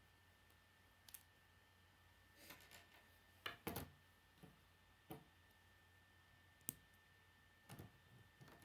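Plastic K'nex rods and connectors clicking and knocking as they are handled and snapped together: a handful of separate sharp clicks, the loudest a quick pair about three and a half seconds in.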